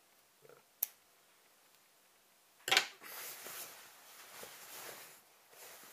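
Handling noise: a single sharp click, then a loud knock about two and a half seconds in as the camera is picked up, followed by hammock fabric rustling close against the microphone.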